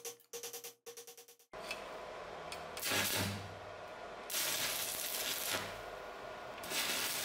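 Short music sting that stops about a second and a half in, then three bursts of hissing spray, each lasting about half a second to a second, over a steady background rush.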